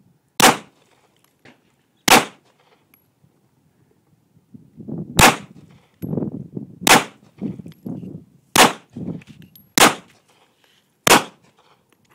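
Gunshots: seven single shots from a firearm, fired at uneven intervals of about one to three seconds.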